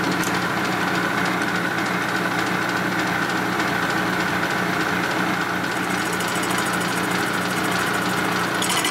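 Milling machine running a cutter through the combustion chamber of a cast-aluminium Harley-Davidson Panhead cylinder head, a steady machine hum with a high whine. Near the end the sound turns into a fast, even chatter as the cutter works the chamber wall.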